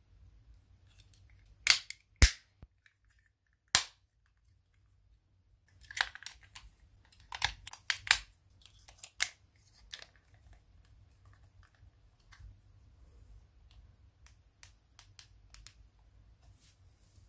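Plastic shell of a Logitech Z906 remote control being snapped back together, with a few sharp clicks about two and four seconds in. A cluster of clicks follows as batteries are pressed into the battery compartment, and fainter ticks come near the end.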